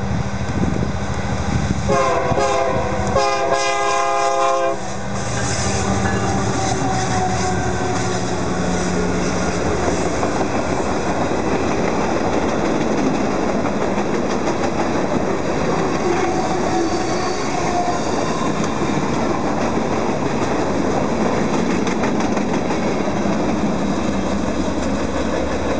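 A diesel freight train passing close by: the lead locomotives' diesel engines drone and the multi-note air horn sounds in two blasts a few seconds in. Then a long run of empty lumber cars rolls past with steady wheel clatter. The engines sound odd to the owner, who puts this down to the two lead EMD SD59MX units being 12-cylinder.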